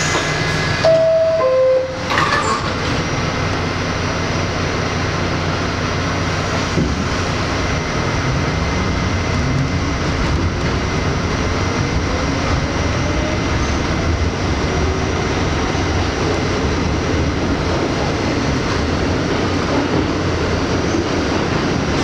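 R68 subway car's two-note door chime, falling in pitch, and the doors closing about two seconds in; then the train pulls out, its motor whine rising steadily in pitch as it gains speed over a steady rumble of wheels on rail.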